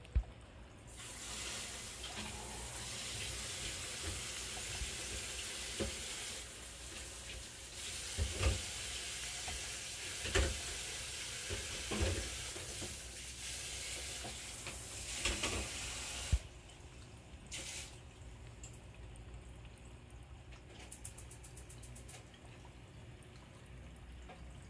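Water running steadily like a tap, with a few knocks through it. It starts about a second in and cuts off with a knock about sixteen seconds in, leaving a faint low hum and light ticking.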